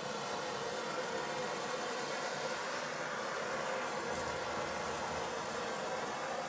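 Handheld propane torch burning with a steady hiss as its flame is passed over freshly poured epoxy to pop surface bubbles.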